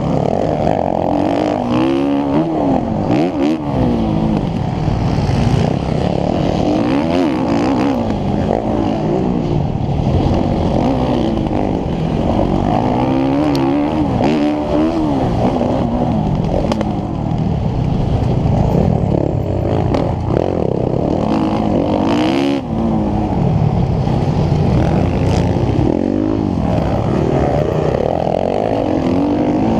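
Motocross bike engine revving up and down again and again as it is ridden hard around a dirt track, heard close up from a camera mounted on the bike, with a few sharp clicks.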